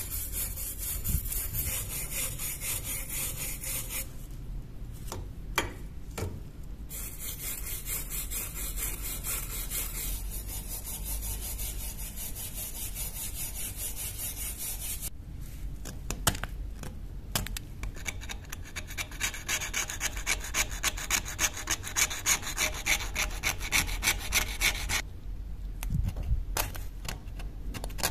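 Small steel wire brush scrubbed quickly back and forth over a rusty steel knife blade, scratching off the surface rust, with a few short breaks.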